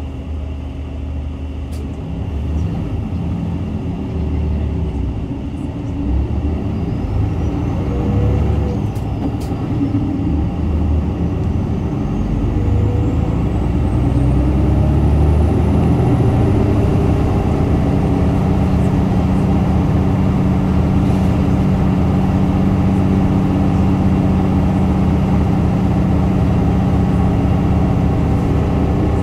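Diesel engine of a Kobe city bus, model PKG-RA274KAN, heard from on board as it drives, its hum shifting in pitch through the first half, then holding a steady, somewhat louder note from a little past halfway.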